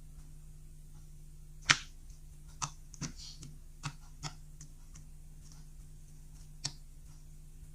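Clear slime being worked by hand, giving sharp sticky clicks and pops about once a second, the loudest a little under two seconds in, with a short crackle near three seconds. A steady low hum runs underneath.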